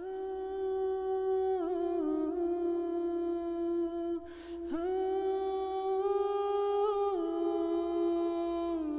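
A single voice humming long held notes without words, each note stepping slightly down in pitch, with a breath about four seconds in.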